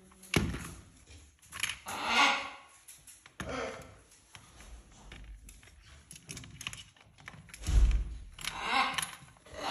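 Cockatoos' beaks knocking, clicking and rattling a hanging plastic ball toy, with a few heavier thunks as the ball is shoved and swings.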